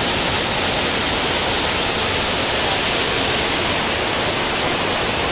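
The roar of Niagara Falls heard up close: a steady, unbroken rush of falling water that sounds like thunder, continuously.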